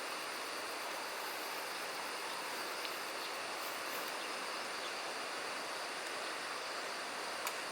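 Steady rush of running stream water, even and unbroken, with a few faint ticks near the middle and near the end.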